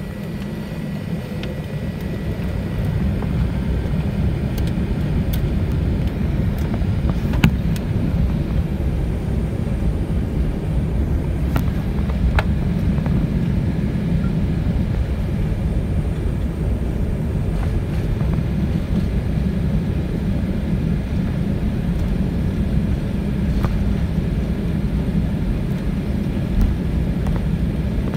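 Airbus A380 cabin noise heard at a window over the wing: a steady low rumble of the engines and the rolling airliner, growing louder over the first few seconds and then holding steady, with a few light knocks and rattles.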